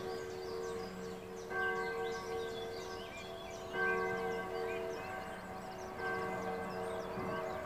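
Church bells ringing, a fresh stroke about every two seconds with the tones ringing on between strokes, while many small birds chirp and sing over them.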